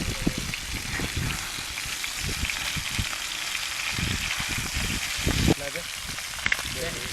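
Fish frying in hot oil: a steady sizzle with low thumps from handling, cutting off abruptly about five and a half seconds in.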